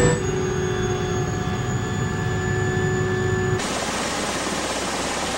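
Helicopter in flight heard from inside the cabin: a steady engine drone with several constant high whining tones from the turbines and gearbox. About three and a half seconds in it cuts to an even rushing noise from the helicopter standing on the offshore platform's helideck.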